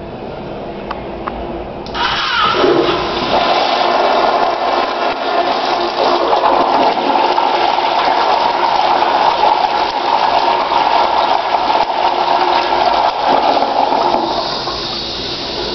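Floor-mounted Crane toilet flushing on a TC automatic flushometer valve. The flush starts suddenly about two seconds in with a rush of water and a brief falling tone, runs steadily for about twelve seconds, then eases off into a higher hiss near the end.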